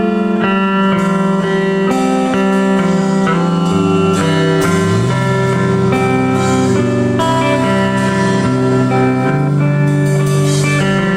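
Live band music: a slow passage of sustained, ringing guitar notes with no singing. A lower line comes in about four seconds in, sliding up in pitch.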